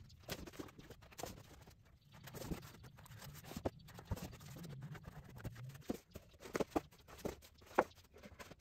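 Sheets of heavy printmaking paper being leafed through and shuffled by hand: soft rustling with a scatter of light taps and clicks, the sharpest few near the end.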